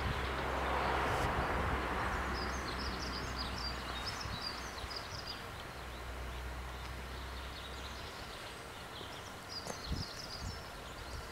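Outdoor ambience: a steady background rush with a low hum that fades out about eight seconds in, while small birds chirp.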